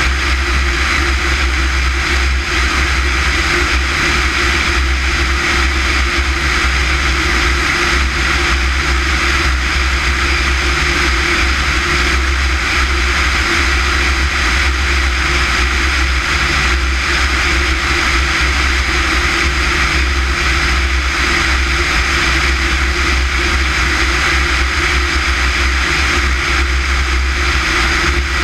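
Small propeller airplane in flight: a steady, loud drone of engine and propeller with rushing air, unchanging throughout.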